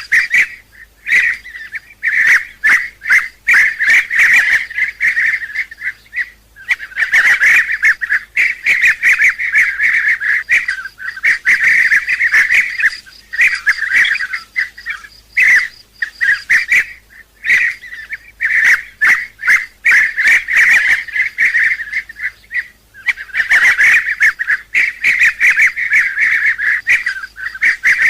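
Bee-eaters calling: many overlapping rolling, trilled calls, repeated almost continuously with brief gaps. This is a lure recording for hunting.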